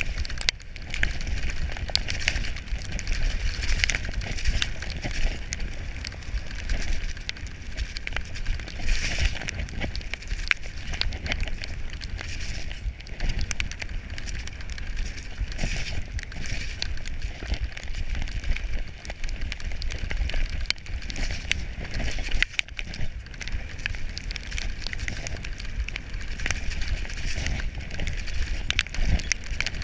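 Specialized Demo 7 downhill mountain bike riding fast down a wet, muddy gravel trail: constant wind rumble on the microphone, tyre hiss, and frequent clicks and rattles from stones and the bike.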